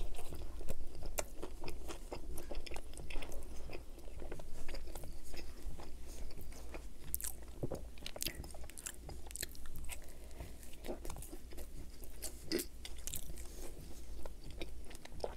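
Close-miked biting and chewing of a grilled chicken souvlaki wrapped in naan bread, with many short, sharp clicks and crackles from the mouth and food.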